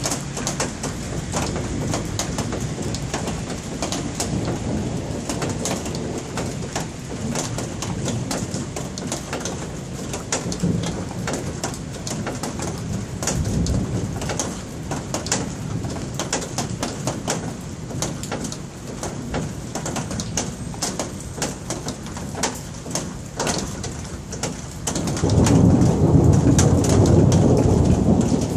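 Steady rain with many drops ticking close by, then a loud, low rumble of thunder rolling in near the end.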